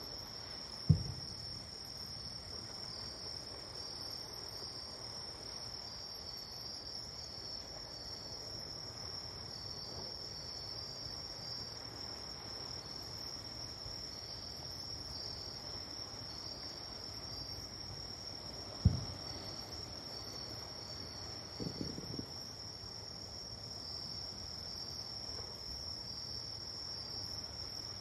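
Crickets chirping steadily, overlaid by two dull, low booms from distant fireworks, one about a second in and one about two-thirds of the way through. A brief run of fainter pops follows a few seconds after the second boom.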